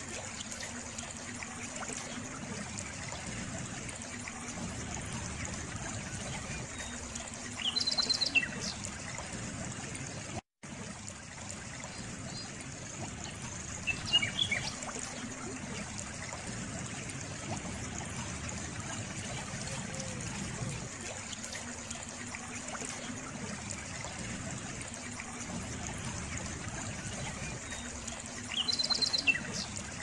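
A stream flowing and trickling steadily, with a bird chirping briefly about a quarter of the way in, again around the middle, and near the end. The sound cuts out for a split second about a third of the way in.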